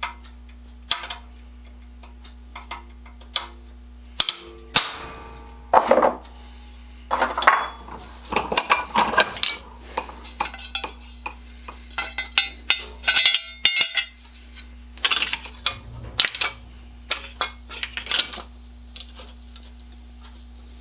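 Hand tools and metal parts clinking and clanking as they are picked up, set down and worked, in irregular clusters of sharp knocks, some briefly ringing, over a steady low electrical hum.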